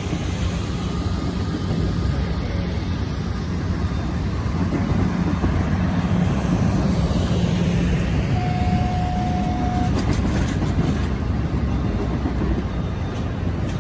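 Amtrak passenger cars rolling past on the rails, a steady low rumble of wheels on track. A brief high steady tone sounds about eight seconds in, and there are a few faint clicks a little later.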